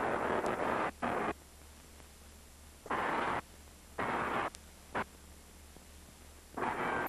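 Large Tesla coil firing in short bursts of crackling discharge, about five or six bursts, each half a second or less, with a steady low hum between them.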